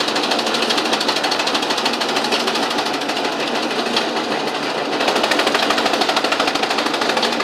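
Chaff cutter running and chopping fodder, its rotating blades making a rapid, even mechanical clatter that grows a little louder about five seconds in.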